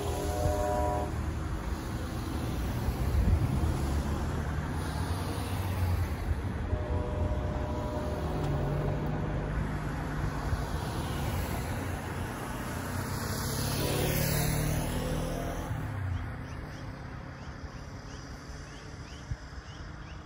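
Road traffic crossing the railroad tracks: cars and a motorcycle driving past one after another, with one louder pass-by falling in pitch about two-thirds of the way through, then fading. A train horn's last note dies away about a second in.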